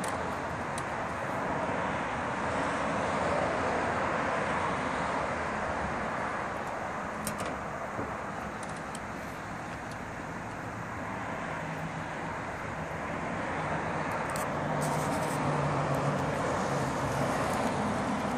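Steady road traffic noise, an even rushing hum that swells and eases slowly, with a faint engine hum rising out of it for a few seconds past the middle.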